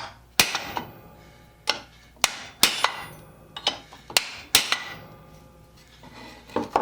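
Hammer blows on a steel rivet and steel plate, with a wooden board between the plates, resting on a rivet staking anvil. There are about ten irregular strikes, each ringing briefly.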